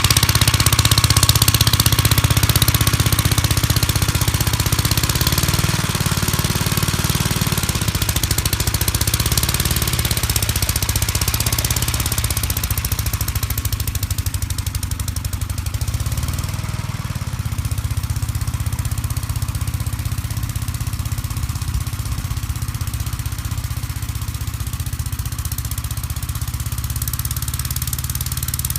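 1959 Gravely L walk-behind tractor's single-cylinder engine running steadily, its pitch shifting slightly a couple of times. A high hiss over it fades out about halfway through.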